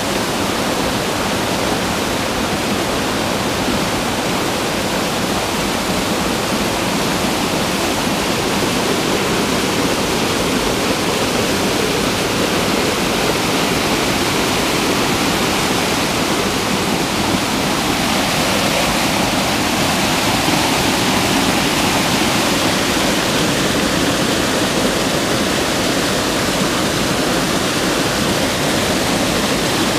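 Waterfall pouring over rocks close by: a steady rush of falling water.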